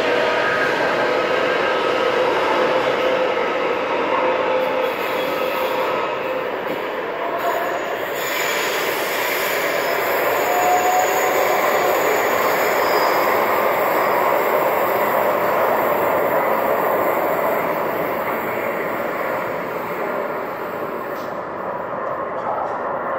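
CSR-built metro train pulling out of an underground station, with a noisy traction-motor whine over the rumble of wheels on rail. The sound grows fainter near the end as the train draws away into the tunnel.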